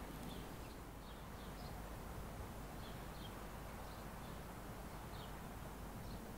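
Small birds chirping in short, high-pitched notes every half second to a second, over a faint steady outdoor background noise.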